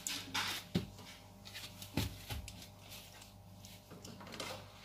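A few light clicks and taps of small plastic toy kitchen pieces being handled, in the first couple of seconds.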